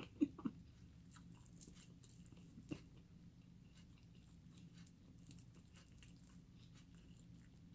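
A person chewing fried chicken wing close to the microphone: faint, scattered mouth clicks and small crunches, one louder about three seconds in. A low steady hum runs underneath.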